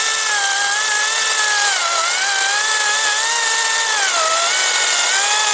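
Makita 18V cordless chainsaw with a 10-inch bar cutting through a log, its electric motor running with a steady whine. The pitch sags twice, about two and four seconds in, as the motor bogs under pressure in the cut, then recovers.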